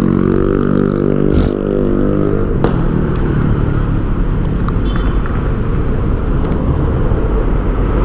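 Motorcycle engine running as the rider slows, its note falling slightly over the first two seconds or so. The engine note then gives way to a steady rush of wind and road noise.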